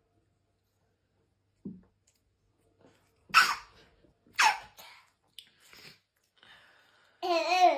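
A person sneezing twice, about a second apart, as a nasal swab test sets off the sneezes; smaller bursts follow, and a wavering vocal sound starts near the end.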